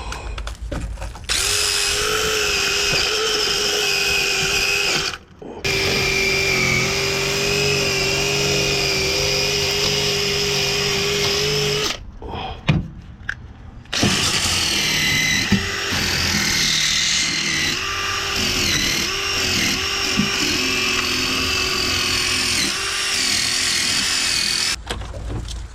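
Cordless power tool spinning a wire wheel against rusted, scaly steel floor metal to knock off loose rust. It runs in long stretches, stopping briefly about five seconds in and again for about two seconds near the middle, where there is a single knock. In the second run its pitch dips again and again as the wheel is pressed into the metal.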